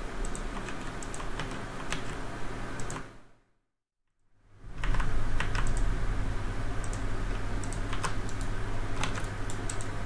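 Mini-ITX gaming PC running under load: a steady whir and hum of its fans, with scattered sharp clicks from mechanical keyboard keystrokes and mouse clicks. The sound cuts out about three seconds in and comes back louder a second later.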